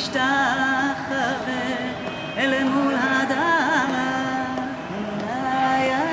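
A woman singing unaccompanied, a slow ornamented melody of held notes with sliding turns between them.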